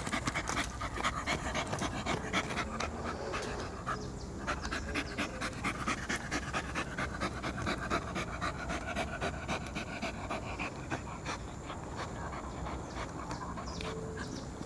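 Small poodle panting rapidly, about four breaths a second.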